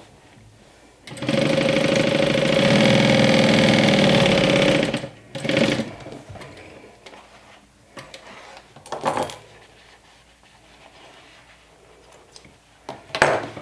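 Juki DU-1181N walking-foot sewing machine stitching in one steady run of about four seconds, then stopping; a few brief sounds follow later.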